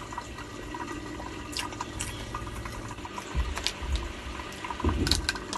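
Cooked crab being picked apart by hand, the shell cracking and clicking a few sharp times, over wet eating sounds.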